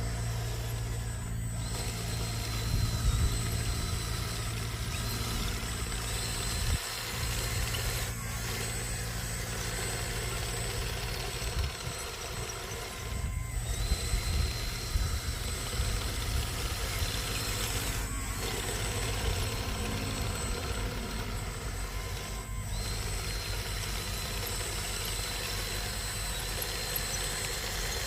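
Radio-controlled model construction trucks running, with a steady engine-like hum and a thin high whine throughout, broken by several brief cuts.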